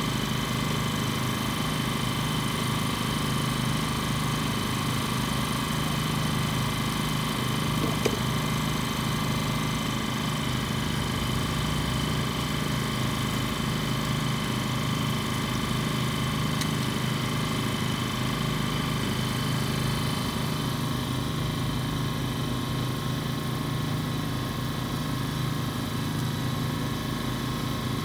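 Steady drone of an engine running at idle, holding several unchanging tones throughout, with a single faint click about eight seconds in.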